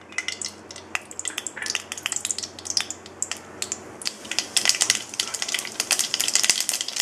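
Mustard seeds and urad dal frying in hot oil in a kadai, sizzling with sharp pops that come faster and louder from about four seconds in as the mustard seeds begin to splutter.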